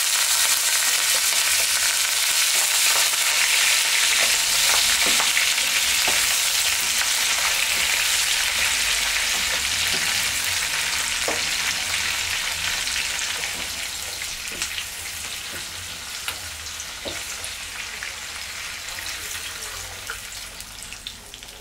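Chopped carrots, onion, scallion and thyme sizzling in hot oil left from frying fish, the first stage of a gravy, stirred with a slotted spatula with scattered light taps. The sizzle is loud at first and dies down steadily over the second half.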